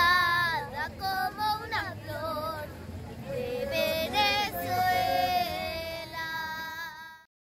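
Young girls singing without accompaniment, a child's voice gliding between notes and holding some of them; it cuts off abruptly near the end.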